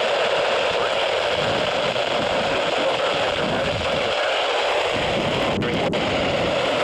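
Steady hiss of radio static from a receiver picking up a weak or noisy broadcast signal.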